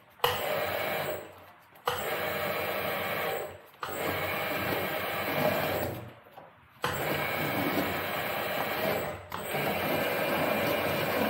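Electric sheet-metal swaging machine running in short runs of one to two and a half seconds, starting and stopping about six times, as it rolls a male swage into the edge of a duct pipe.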